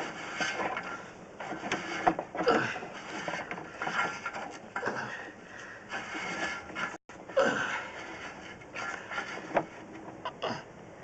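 Drain inspection camera being pushed along a pipe: irregular scraping, knocking and mechanical clicking, with a louder scrape every second or two.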